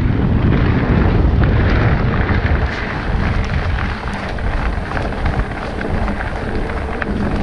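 Wind buffeting the microphone and mountain-bike tyres rolling fast over a dirt forest trail, with scattered small clicks and rattles from the bike over the bumps. It eases off a little about three seconds in.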